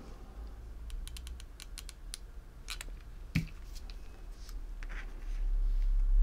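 Light scattered clicks and ticks from a hot glue gun and a metal alligator hair clip being handled while hot glue goes onto a felt circle, with one sharper click about three seconds in. A low rumble builds near the end and is the loudest part.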